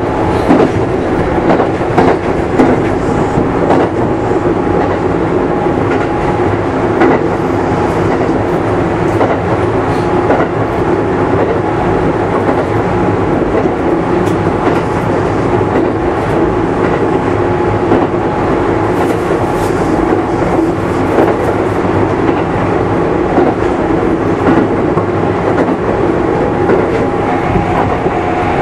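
Running sound heard aboard a Kintetsu 5200 series electric train with GTO-VVVF inverter control: a loud, steady rumble of wheels and traction motors at an even speed, with a faint steady whine and scattered wheel clicks over the rails.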